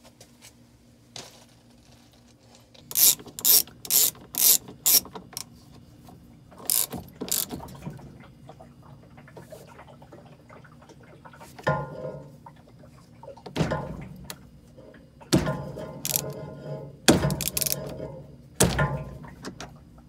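Hand socket ratchet clicking in short runs as it tightens the nut on a Whirlpool/Maytag top-load washer's large drive pulley. Heavier knocks come in among the clicks in the second half.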